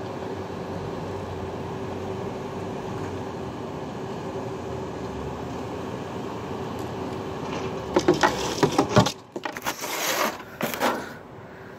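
FedEx box truck's engine running as it rolls slowly past, a steady drone with a constant hum. About eight seconds in, about three seconds of loud, irregular knocks and rattles take over, and then the sound drops to a quieter hum.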